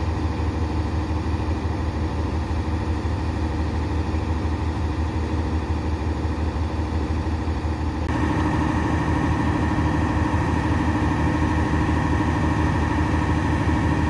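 Diesel train engines idling while the train stands still, a steady low hum. About eight seconds in it gets a little louder and a few steady whining tones join it.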